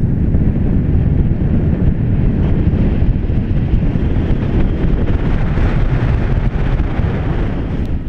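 Wind buffeting the microphone of a camera riding on a moving car, a loud, steady, low rumbling rush with road noise under it.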